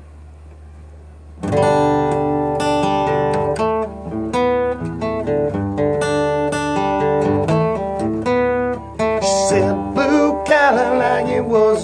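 Acoustic guitar strummed in steady chords, starting about a second and a half in, as the opening of a country song.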